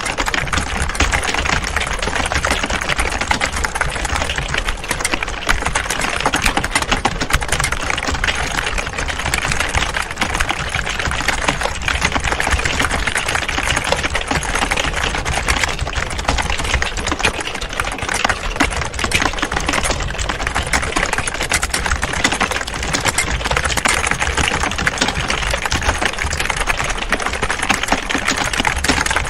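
Many people typing on computer keyboards at the same time: a dense, unbroken clatter of overlapping keystrokes.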